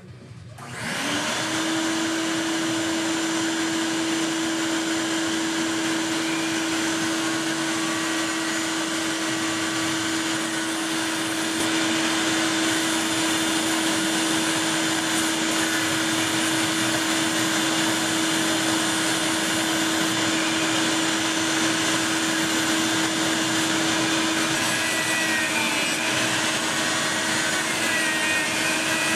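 A shop vacuum and a benchtop bandsaw start up about a second in and run with a steady whine. From about eleven seconds it gets a little louder as the bandsaw blade cuts through a G-10 fiberglass sheet, with a few faint squeals near the end.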